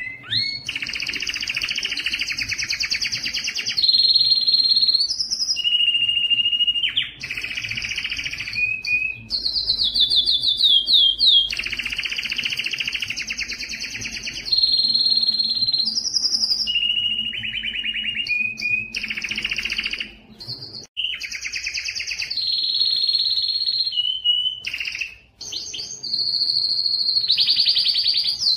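Male domestic canary singing an excited breeding song: long fast trilled rolls alternate with held single-pitch notes, broken by short pauses about two-thirds of the way through.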